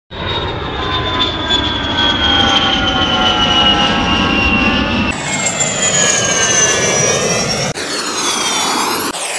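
Ambulance sirens, one variation after another. First a long siren tone slowly falls in pitch over a steady low rumble, like a vehicle going past. About five seconds in it cuts to another siren, also falling in pitch, and near the end to a wail that sweeps up and down.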